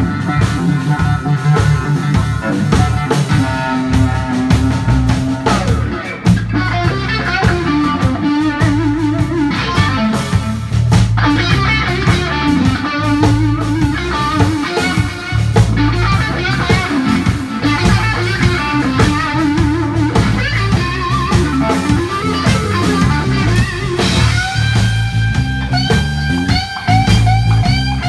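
Live blues-rock band playing an instrumental passage: an electric guitar plays lead lines with bent, sliding notes over bass guitar and a drum kit. In the last few seconds the guitar repeats a short high phrase.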